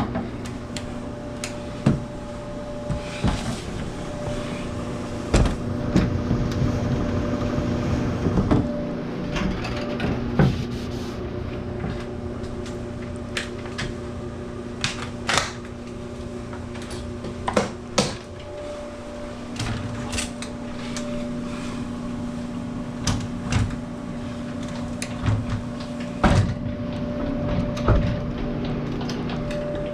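Irregular knocks, clicks and clatter of hands and tools working on a clothes dryer's panels and parts, over a steady low hum.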